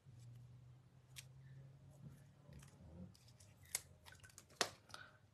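Faint handling of craft supplies on a desk: a scatter of small sharp clicks and taps, the two loudest about four and four and a half seconds in, over a low hum that fades out about halfway through.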